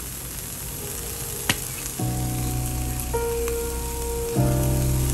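Sliced onions sizzling steadily in a frying pan, with a single sharp click about a second and a half in. Background music with sustained chords comes in about two seconds in.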